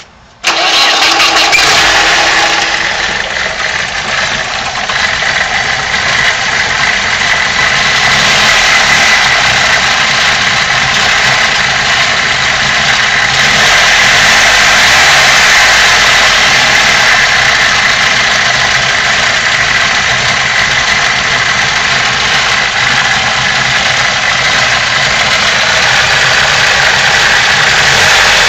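BMW M42 1.8-litre four-cylinder engine starting about half a second in and then idling roughly, even with new Bosch injectors fitted at 150,000 miles.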